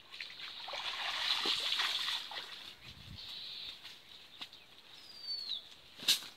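Water splashing and streaming off a wet cast net with fish in it as it is lifted out of shallow water, then a dull thud as the net is set down. A short falling whistle comes about five seconds in, followed by one sharp click.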